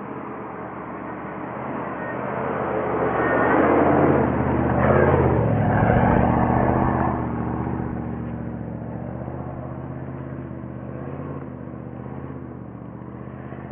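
A 4x4 SUV drives past on a leaf-covered dirt track. Its engine and tyre noise grow louder as it approaches, are loudest as it passes about five seconds in, then fade as it pulls away.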